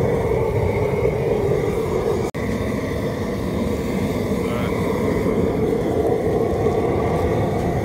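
Propane burner under an R&V Works Cajun seafood boiler running with a steady roar, the seasoned water in the vat at a rolling boil. The sound drops out for an instant about two seconds in.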